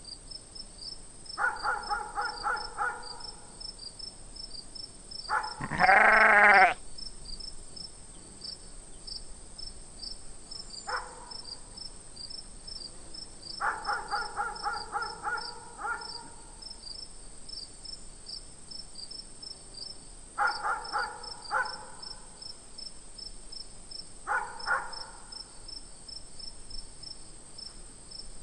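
Bleating farm animals call in about six bursts of quick pulsed bleats, the loudest a long rising bleat about six seconds in. Crickets chirp steadily underneath.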